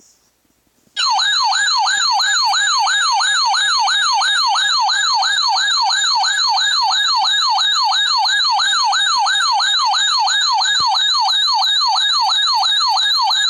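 Radio Shack 12-519 weather alert radio sounding its loud siren-like alarm: a pitch warbling up and down about three times a second, starting about a second in. The radio has been set off by a NOAA Weather Radio alert header.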